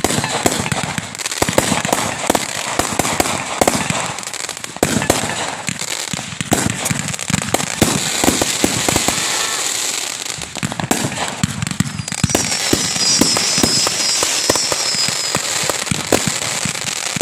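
Fireworks going off in a dense run of crackles and pops, with a high wavering whistle for about three seconds two-thirds of the way through.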